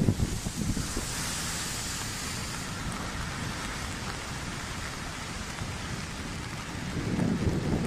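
Storm waves crashing over a seawall: a heavy low crash right at the start, then the steady hiss of spray falling back. Another surge rumbles in near the end.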